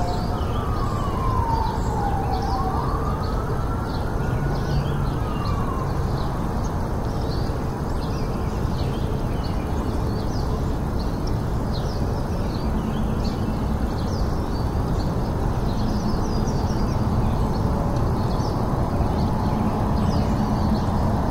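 A siren wailing, its pitch falling, rising and falling again over the first six seconds, then fading, over a steady rushing noise that runs throughout.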